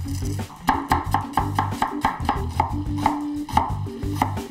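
Cleaver-style knife chopping an onion on a wooden butcher-block board: a quick, even run of knocks, about four a second, starting under a second in.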